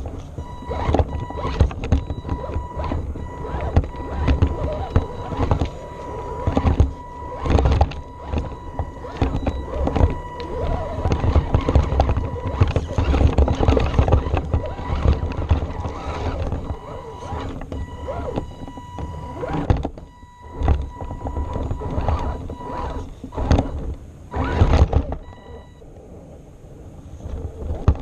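Onboard sound of an Axial AX10 Deadbolt RC rock crawler driving: a steady high-pitched whine from its brushed electric motor and drivetrain, with frequent knocks and clatters as the chassis and tyres scrabble over rocks. The whine drops out for a moment around twenty seconds in and again near the end.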